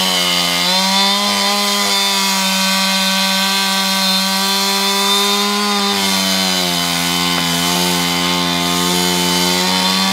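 Chainsaw running at high revs while cutting into a large tree trunk, its pitch sagging slightly under load about half a second in and again around the middle, then recovering.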